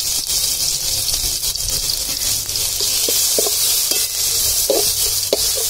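Crushed garlic sizzling in hot sesame oil in an aluminium pot: a steady frying hiss with crackle. From about three seconds in, a metal slotted spatula scrapes against the pot in short strokes as it is stirred.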